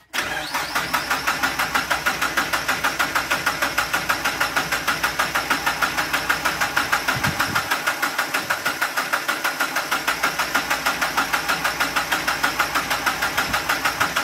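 Starter cranking a freshly swapped Mazda MX-5 engine in a steady, even rhythm of about six turns a second without it firing. The owner suspects the fuel lines are connected the wrong way round, so no fuel reaches the engine.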